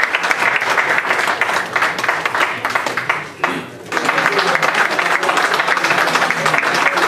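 Audience applauding steadily. The applause breaks off briefly a little past halfway, then picks up again.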